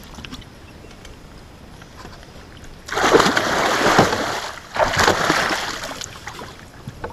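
A musky thrashing at the surface beside the boat as it is released by hand, two bursts of splashing about three and five seconds in.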